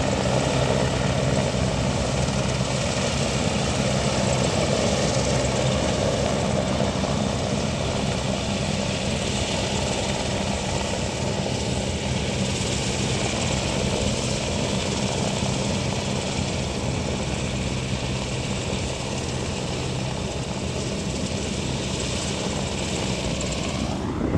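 Large helicopter flying low, a steady deep rotor and engine drone with a steady high turbine whine over it.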